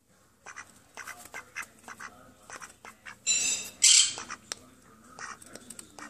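Duck pecking and nibbling at a hand with its bill, a string of short sharp clicks, with one loud harsh call about three seconds in that lasts about a second.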